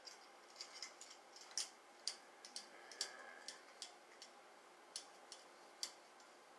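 Faint, irregular light clicks and ticks, about fifteen in six seconds, from hands massaging cream into the scalp and locs, with the metal bangles on the wrist clicking as the hands move.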